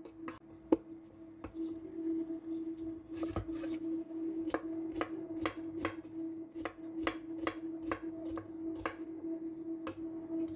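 Chef's knife chopping peeled green plantain into cubes on a wooden cutting board, each cut ending in a knock of the blade on the board. The cuts come sparsely at first, then settle into a steady run of about three a second, over a faint steady hum.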